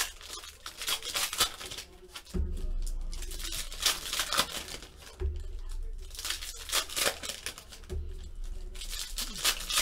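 Foil trading-card pack wrappers being torn open and crinkled by hand, a string of short, sharp rustles.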